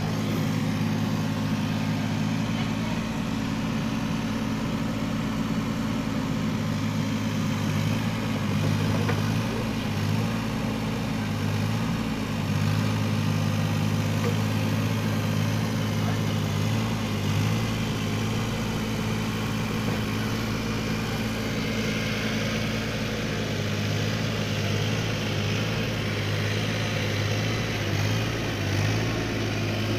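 Wacker Neuson mini excavator's diesel engine running at a steady, even speed.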